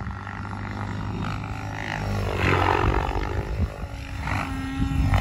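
Radio-controlled Banshee 850 helicopter in flight, its rotor blades and motor whining and whooshing, growing louder about two and a half seconds in and again near the end as it passes closer.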